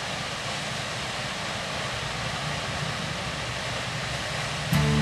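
Steady rushing noise of a tall waterfall. Music comes in near the end and becomes the loudest sound.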